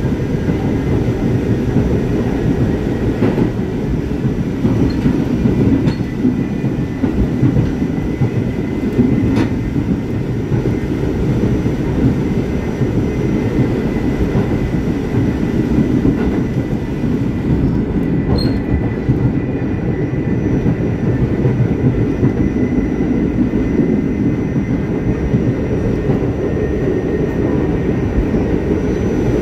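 R44 subway car running along the Staten Island Railway, heard from inside: a steady rumble of wheels on rail, a faint steady high whine, and an occasional click from the track.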